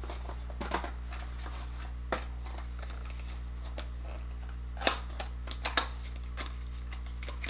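Plastic makeup cases being handled: a few scattered clicks and taps, the loudest about five seconds in, over a steady low hum.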